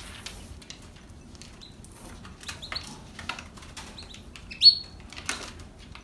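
Canaries chirping a few short calls, the loudest a quick rising chirp about four and a half seconds in, over light clicks and rustles of a bird moving about the cage.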